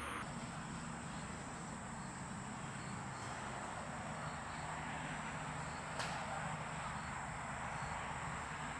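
Steady outdoor ambience with insects chirping: faint chirps repeat evenly over a steady hiss and a high steady hum. A single sharp click about six seconds in.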